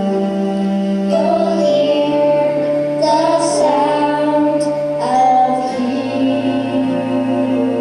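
A choir of singers with female voices prominent, holding long sustained notes over instrumental accompaniment.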